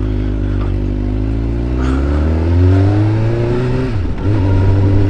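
2004 Suzuki GSX-R600's inline-four engine accelerating, its pitch climbing steadily for about four seconds. The revs drop briefly about four seconds in, then pick up again.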